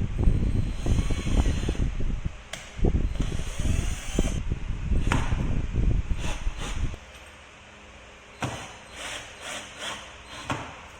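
Flat-pack furniture hardware and parts being handled: a dense, irregular clatter of knocks and rustling for about seven seconds, then a few lighter clicks.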